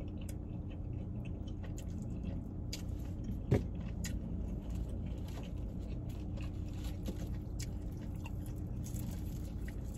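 Steady hum of a car's running engine and air conditioning heard inside the cabin, with faint chewing and small clicks of someone eating crispy fried chicken, and one short sharp click about three and a half seconds in.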